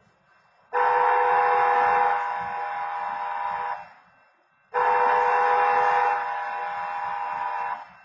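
Automated wayside horn at a railway crossing sounding two long, identical blasts of about three seconds each, a steady chord-like horn tone that is loudest for its first second. It sounds with no train at the crossing: a phantom activation of the crossing signal set off by a very slow train still some way off.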